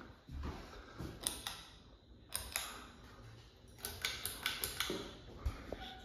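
Westinghouse Contempra hugger ceiling fan running on low speed, with runs of light mechanical clicks and ticks, busiest about four seconds in.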